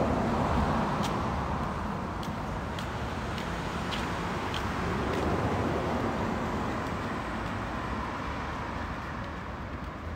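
City street traffic: cars driving past, a steady rush of engine and tyre noise that swells about five seconds in and slowly fades toward the end, with faint clicks about every half second in the first half.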